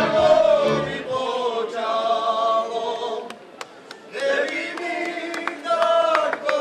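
Group of voices singing a Slovak folk song in chorus; the fiddle band with its bass stops about a second in, leaving the voices unaccompanied. The singing breaks off briefly around the middle, then resumes.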